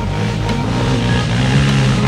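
ATV engine running under throttle, mixed with background music.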